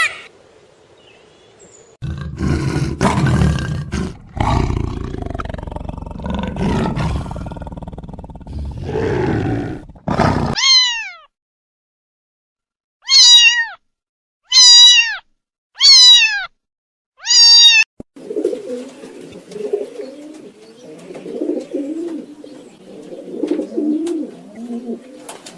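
A string of different animal calls in turn: a rough, low call lasting several seconds, then four short cries about a second apart, each falling steeply in pitch, then low, uneven calls.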